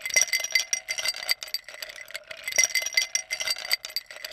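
Ice cubes clinking and rattling against a stainless steel bowl: a quick, dense run of clinks with a steady ringing tone under them, stopping abruptly near the end.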